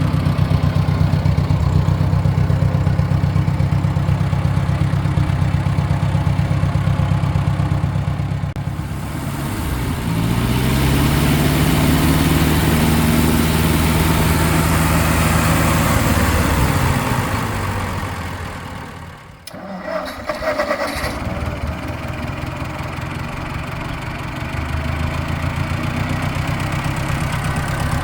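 Ford 650 tractor's four-cylinder engine running steadily. About ten seconds in it revs up and holds the higher speed for several seconds, then falls back. After a brief dip near twenty seconds it runs steadily again.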